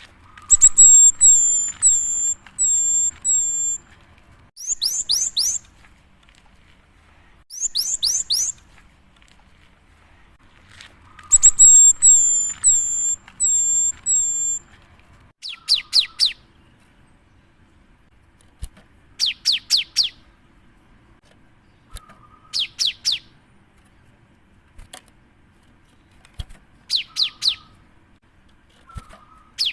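Cinereous tit (gelatik batu) singing: phrases of short, repeated high notes in quick runs, then, from about halfway in, brief clusters of fast falling whistled notes every few seconds. The song is used as a lure to set other birds of its kind singing.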